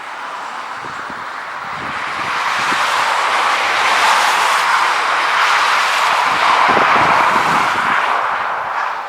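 Jet airliner passing close by on the runway: a broad rushing engine noise that swells over several seconds, holds, then begins to fade near the end.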